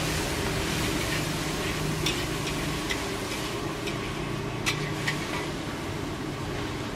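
Char kway teow stir-frying in a wok over a high flame: a steady rush of burner and sizzle, broken by several sharp clinks of the metal wok spatula against the wok, the loudest about two-thirds of the way through.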